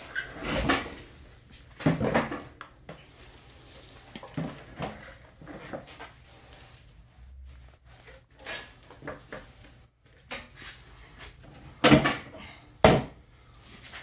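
Clunks, scrapes and knocks of a snowmobile rear suspension skid being worked into a composite track by hand, with two sharp knocks about a second apart near the end.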